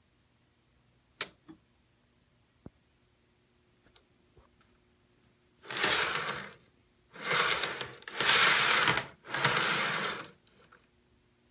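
Lionel postwar 2555 tank car's metal wheels rolling on three-rail tubular track as it is pushed back and forth by hand, four rumbling runs of about a second each. A single sharp click comes about a second in, over a faint steady hum.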